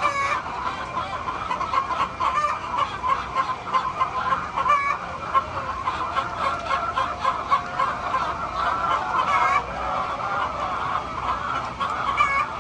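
A flock of chickens clucking and calling over one another continuously.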